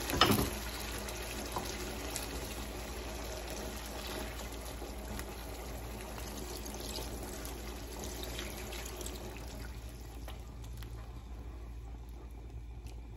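Papaya cooking water poured from a jug into a nonstick pan of chicken and papaya curry, with a silicone spatula stirring it in; a steady pouring and sloshing that drops off after about ten seconds.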